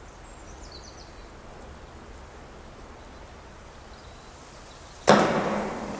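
Faint outdoor ambience. About five seconds in, a sudden loud rushing whoosh starts and fades away.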